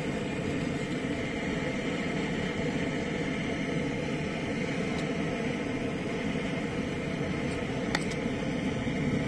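Petrol blowtorch burning with a steady roar, with a couple of faint clicks from a knife working a singed moose lip.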